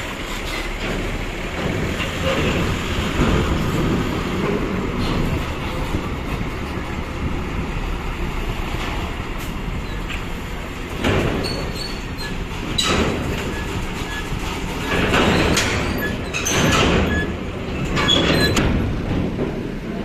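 Large intercity buses moving at a ferry dock: steady heavy engine rumble, with a run of loud clanks and rattles in the second half.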